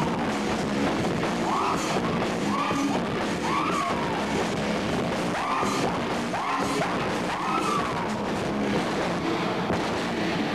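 Rock band playing live with electric guitars, loud and dense, with a high figure that rises and falls and repeats about once a second.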